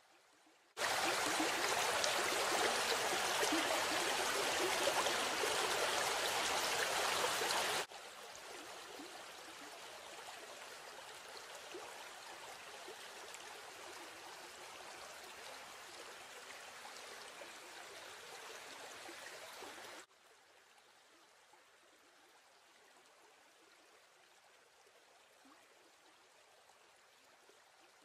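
Flowing water of a stream and small waterfall, a steady rushing hiss. It comes in loud about a second in, drops abruptly about eight seconds in, and drops again to a faint wash about twenty seconds in.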